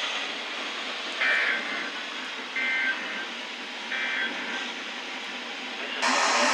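NOAA Weather Radio receiver playing the Emergency Alert System end-of-message signal over steady radio hiss: three short electronic data bursts, a little over a second apart, marking the end of the alert. About six seconds in, a loud rush of static starts abruptly.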